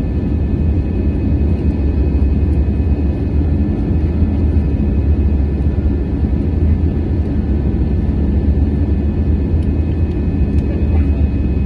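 Cabin noise of an Airbus A320-216 in its initial climb, heard from a window seat beside the wing: its CFM56-5B turbofan engines at climb thrust give a steady deep rumble, with a few faint steady whines above it.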